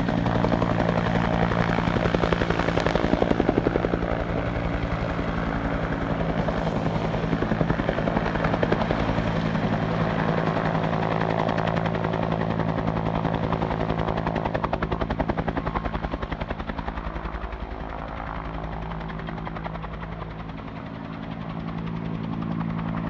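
Helicopter rotor beating rapidly over a steady engine drone, as the helicopter lifts a tower piece on its long-line rigging. The sound dips a little in level near the end, then swells back.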